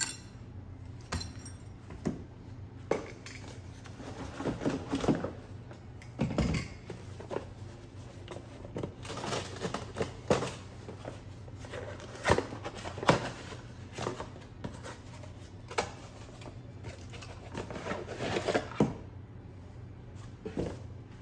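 Handling noise from unboxing: scattered clicks, taps and knocks of small plastic tool parts being picked up and set down, with short stretches of packaging rustle.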